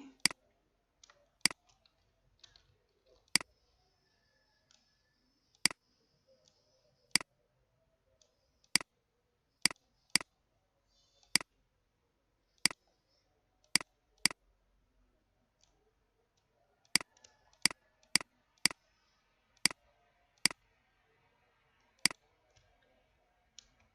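Computer mouse clicks, about twenty single sharp clicks at irregular spacing, some less than a second apart, others two or three seconds apart.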